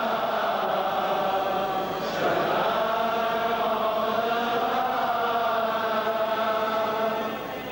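A group of voices singing a slow funeral chant in long, held notes, with a brief break about two seconds in.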